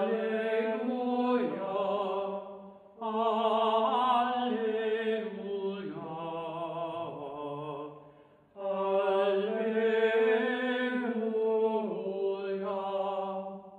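Liturgical chant sung slowly with vibrato, in three long phrases with short breaks about three seconds and eight and a half seconds in. This is the sung music that comes between the Epistle and the Gospel at a Eucharist.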